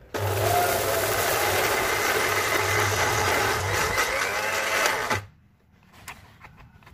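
Small electric blender chopping cut red chilies dry, without oil or water, running steadily for about five seconds before it is switched off suddenly. A few faint clicks follow.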